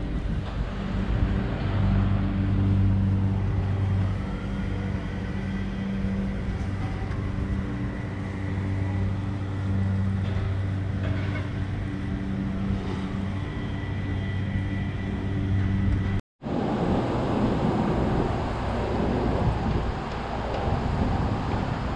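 A vehicle's steady engine drone with road noise. About sixteen seconds in there is a brief dropout to silence, after which the noise is rougher.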